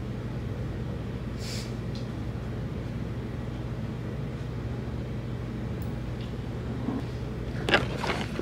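Dishwasher running: a steady low hum. About a second and a half in there is a short hiss, and near the end come a few knocks and rustles as the camera is handled and picked up.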